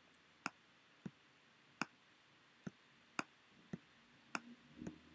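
Faint computer mouse clicks, about eight sharp single clicks at uneven intervals.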